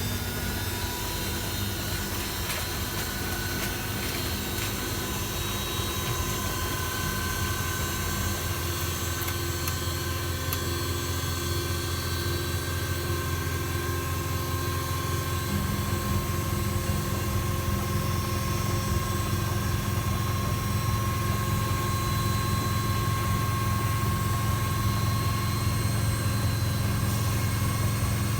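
Hoover Keymatic De Luxe 3243H washing machine running its wash, its motor humming steadily as the drum tumbles the load. The hum changes note and grows a little louder about halfway through.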